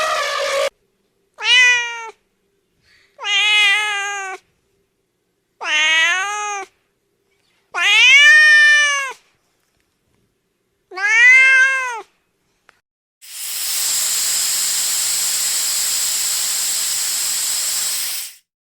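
A domestic cat meowing five times, each meow rising then falling in pitch. Near the end comes a steady hiss lasting about five seconds.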